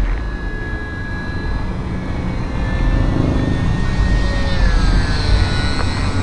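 Radio-controlled model airplane's motor and propeller whining steadily, its pitch dropping about two-thirds of the way through, with wind buffeting the microphone.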